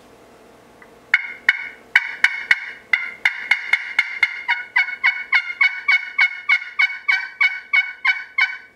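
Slate pot turkey call played with a wooden striker, freshly conditioned with green Scotch-Brite: a long run of hen-turkey yelps starting about a second in, quickening slightly toward the end.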